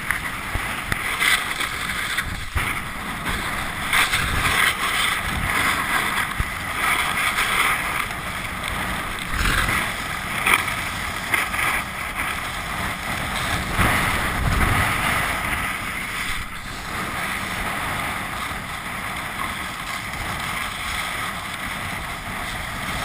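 Snowboard sliding and scraping over packed snow on a downhill run, with wind buffeting a helmet-mounted camera's microphone. The hiss rises and falls in loudness.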